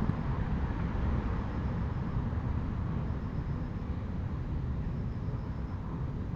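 Steady low rumble of urban background noise, with no distinct event standing out.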